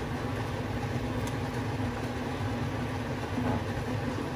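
Steady low hum under a pot of arroz caldo (chicken rice porridge) boiling on the stove as it is stirred with a plastic ladle.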